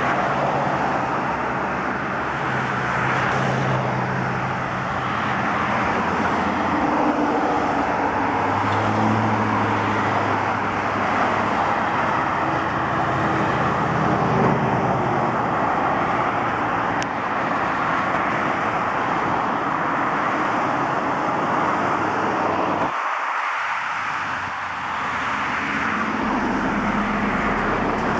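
Road traffic: cars driving past on a nearby street, with a steady rush of tyre and engine noise and the hum of individual cars rising and fading now and then.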